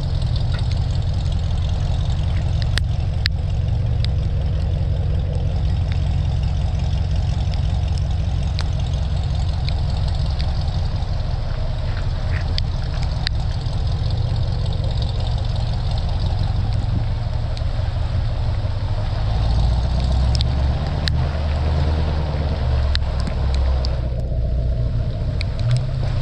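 Car engine and exhaust rumbling low and steady at crawling speed, swelling briefly about twenty seconds in, with scattered sharp ticks of raindrops hitting the camera.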